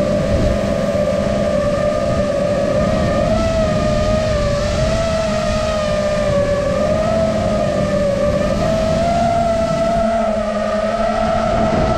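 FPV drone's motors and propellers whining at a steady pitch that wavers gently up and down with the throttle.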